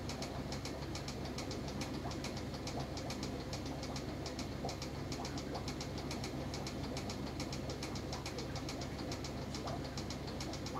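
Steady hum of a small motor with a fast, even ticking, about five ticks a second.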